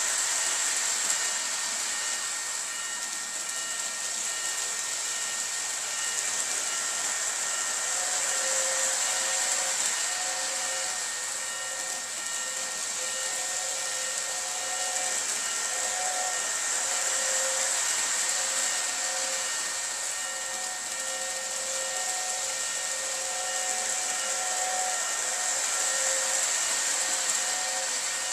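Lionel O gauge Polar Express toy steam locomotive running on its track close by: a steady hiss with a thin motor whine, and from about eight seconds in a faint on-and-off tone underneath.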